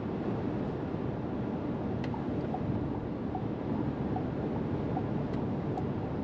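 Steady wind and road noise inside the cabin of a SsangYong Torres T7 4WD driving at speed, the wind rushing around the A-pillars and side windows. The reviewer puts this down to the car's tall body and squared-off A-pillars.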